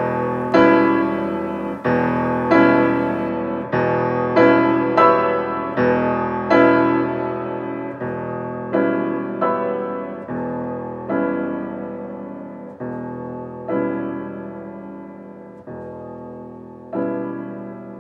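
Background music: slow solo piano chords, each struck and left to ring out, growing sparser and a little softer in the second half.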